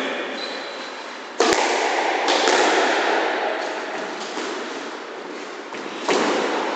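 Squash ball smacking off racket and court walls: a sharp crack about a second and a half in, another soon after, and a third about six seconds in. Each hit rings on in the court's echo.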